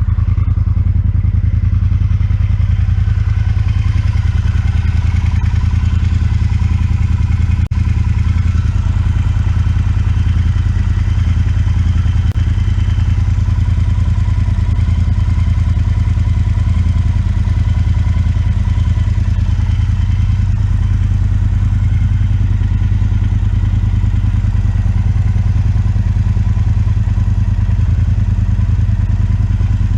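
Triumph Speedmaster 1200's parallel-twin engine idling steadily through its stock exhaust pipes.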